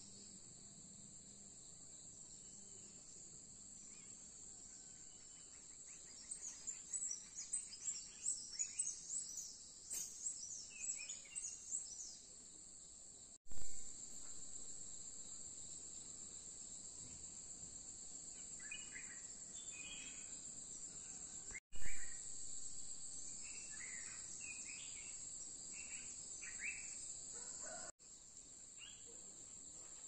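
Steady high-pitched insect chorus, like crickets, with bursts of bird calls and chirping: a busy patch a quarter of the way in and scattered calls later on. A few brief bumps where the recording cuts between shots are the loudest moments.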